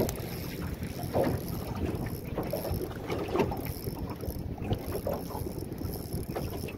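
Wind buffeting the microphone over choppy water slapping against the side of a small boat, with a few louder slaps now and then.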